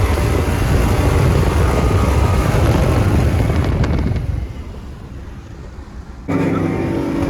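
Cars at full throttle in a street roll race: loud engine and wind rumble that fades after about four seconds. Near the end it cuts abruptly to a different, steadier engine sound.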